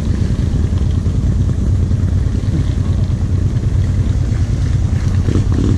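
ATV engine running steadily at low revs, a continuous low hum.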